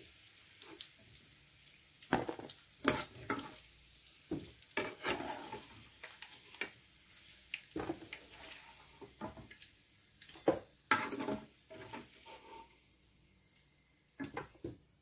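A metal cooking utensil clinking and scraping against a frying pan in irregular knocks, over a faint sizzle of hot oil, as the browned chicken pieces are lifted out and some of the frying oil is taken off.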